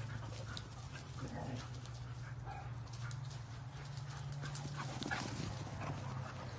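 Several dogs running and chasing each other across a grass lawn: quick footfalls and scuffs of their paws, with scattered small ticks, over a steady low hum.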